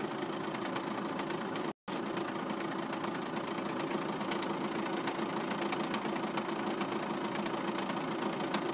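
Škoda Octavia 2.0 TDI PD (BKD) four-cylinder pump-injector diesel idling warm, clutch released, with a steady clatter of fine rapid ticks over its hum: the strange noise that the owner links to the clutch and dual-mass flywheel. The sound cuts out for a moment about two seconds in.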